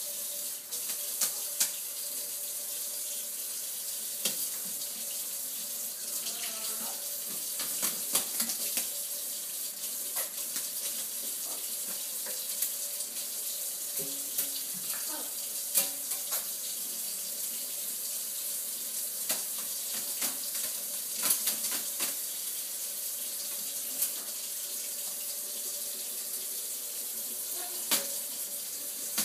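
Kitchen faucet running into a stainless steel sink with a steady hiss. Repeated sharp splashes break through it as a blue-and-gold macaw flaps its wings in the water.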